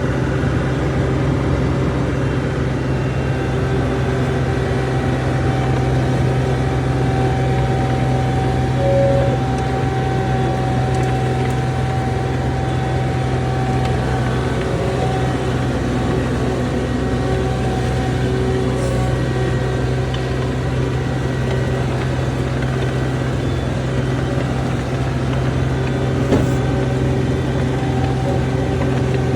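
John Deere 250 skid steer's diesel engine running steadily at an even speed, a constant hum with no change in pitch.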